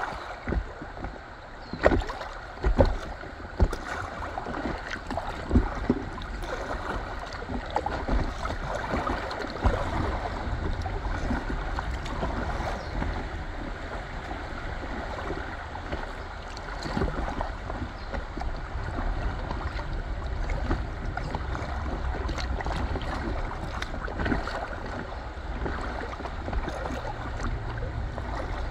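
River current rushing and lapping against the hull of an inflatable kayak, under a low rumble of wind on the microphone. A few sharp knocks come in the first several seconds.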